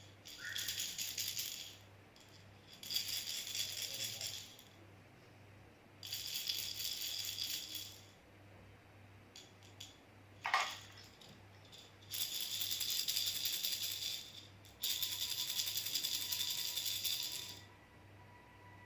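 A baby rattle shaken in five separate bouts of about two to three seconds each, its beads rattling fast and crisp, with short pauses between. About ten and a half seconds in there is a single brief sharp sound that drops in pitch.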